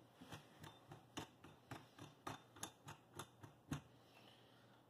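Faint, quick ticking clicks, about four a second and a little uneven, from a dovetail lock screw being turned by hand into the saddle of a Celestron CG-4 telescope mount; they stop a little before the end.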